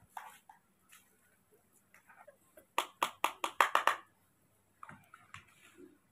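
A quick run of about eight sharp clicking taps lasting about a second, starting about three seconds in, followed by a few fainter clicks.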